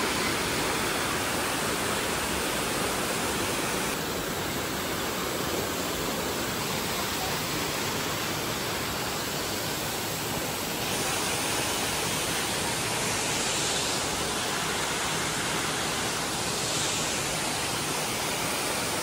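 Steady rushing of the Düden Waterfall and its white-water rapids, an even hiss of falling water that shifts slightly in tone about four and eleven seconds in.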